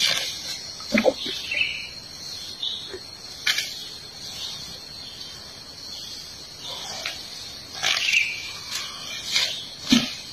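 An Asian elephant tearing up grass with its trunk: irregular rustling and snapping, louder in several short bouts. A steady high insect buzz runs behind it.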